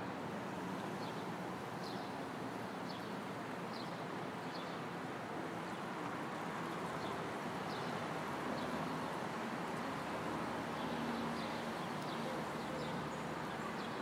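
City street ambience: a steady hum of traffic with short bird chirps scattered over it.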